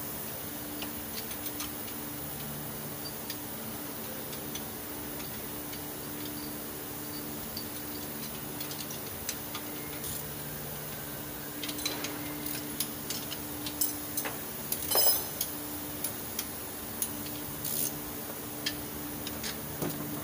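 Scattered sharp metallic clicks and clinks, like hand tools being handled, more frequent in the second half, over a steady low hum.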